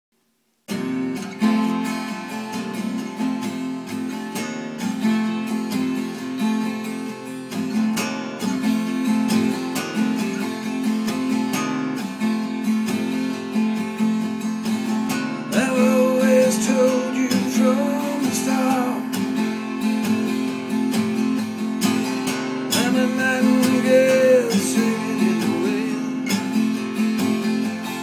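Acoustic guitar strumming a song intro, starting just under a second in. A higher melody line that glides in pitch comes in twice, around the middle and again near the end.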